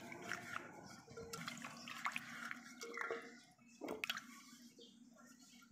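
Cut raw potatoes being swished and washed by hand in an aluminium bowl of water: soft splashing and dripping, with a sharper knock about four seconds in.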